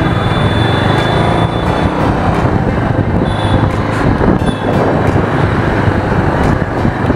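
Motorcycle engine running while riding along a city street, with road and wind noise over it.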